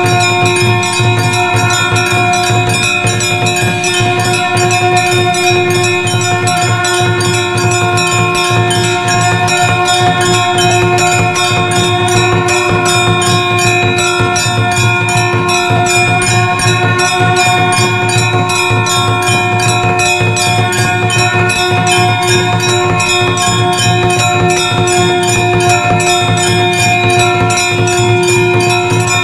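Temple bells rung rapidly and without pause, a fast even stream of strokes over several steady, held ringing tones.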